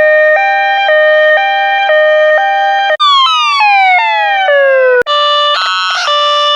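New York ambulance siren switching through its patterns: a steady hi-lo two-tone, each note about half a second, then about three seconds in a long falling wail, then after a click about five seconds in a faster, harsher alternating tone.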